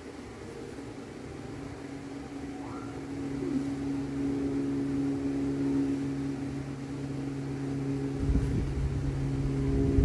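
Steady motor hum that grows slowly louder, with a low rumble joining about eight seconds in.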